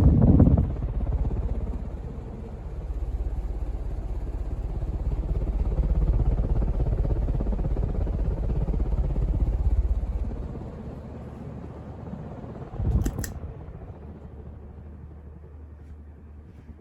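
Casablanca Delta II ceiling fan running on high speed, a steady low whir with its original bearings almost silent. About ten seconds in the sound drops to a quieter low hum, and a single short knock comes about thirteen seconds in.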